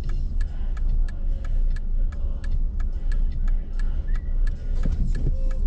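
Car engine and road noise heard from inside the cabin as a steady low rumble, with a turn-signal indicator ticking evenly about three times a second.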